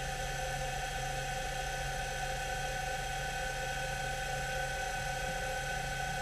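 Fadal CNC mill spindle running at steady speed on its rebuilt drive motor, a steady high whine over a low hum. This is a test run after the motor was reinstalled.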